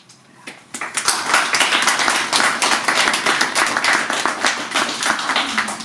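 A small audience applauding, with many hands clapping. It starts about a second in and keeps going steadily.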